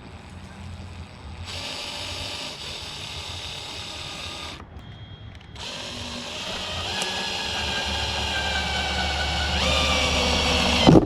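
Power drill boring a hole through the sheet-metal cab roof of a pickup: a short run, a brief pause, then a longer run that rises in pitch and grows louder before stopping near the end.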